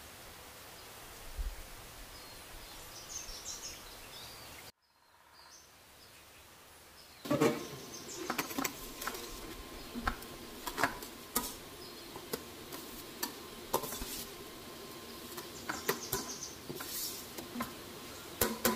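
Steel utensils clinking and knocking against a steel cooking pot as a plate of soaked rice is tipped into simmering meat stock, many sharp clicks over a steady hiss. Earlier there is a steady low hiss with a few faint chirps, and the sound briefly drops out about five seconds in.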